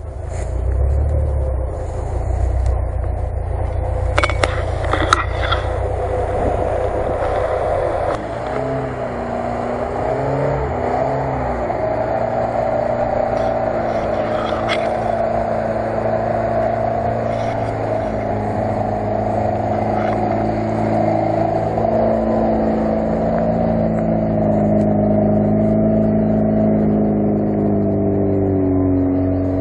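Lada Niva engine labouring in low gear as it climbs a muddy slope, the revs wavering up and down and rising near the end. The first several seconds are a rougher rumble with a few sharp clicks.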